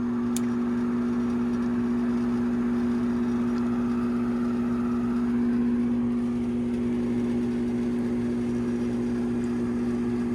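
Gas furnace draft inducer motor running with a steady hum, pulling draft through the furnace so the vacuum (pressure) switch can close ahead of ignition.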